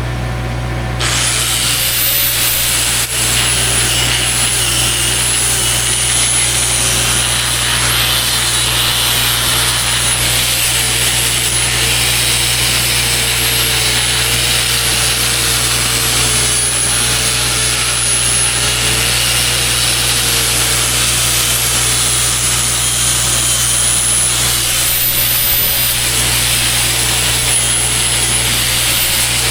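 Angle grinder grinding down welds on steel, starting about a second in and running without a break; its high whine wavers up and down as it is pressed into the metal. A steady low hum runs underneath.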